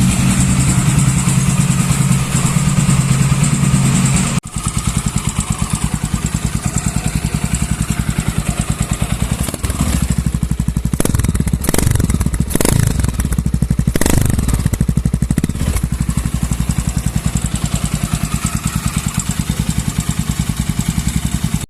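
Honda Twister motorcycle's single-cylinder four-stroke engine idling through an exhaust fitted with a Pop 110 'roncador' rumble insert, with a fast, even pulsing beat. Several short throttle blips come in the middle.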